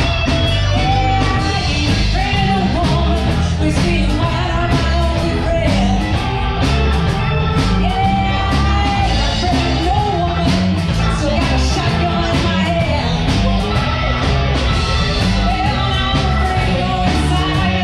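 A live blues band playing: electric guitar, bass, drums and keyboard, with singing over the top.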